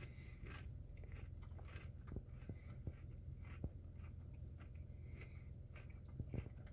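A person biting into and chewing fried pickles: faint, scattered crunching and mouth sounds.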